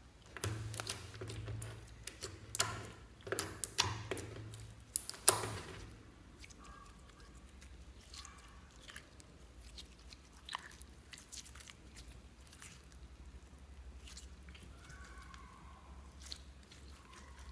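Clear slime with small fruit-slice pieces mixed in, squeezed and stretched by hand: sticky crackles and pops. They are dense and loud for the first six seconds, then fainter and sparser.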